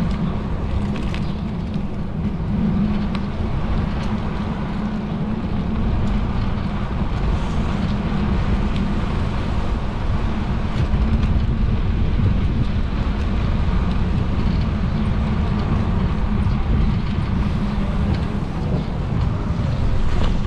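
Steady wind buffeting a bicycle-mounted camera's microphone while riding, with the tyre rumbling over asphalt.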